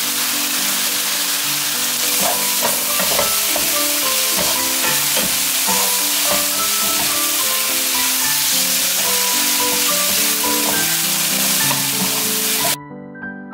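Eggplant and onion strips sizzling as they stir-fry in a hot nonstick pan, tossed with a wooden spatula that clicks and scrapes against the pan. Background piano music plays throughout, and the sizzle cuts off suddenly near the end.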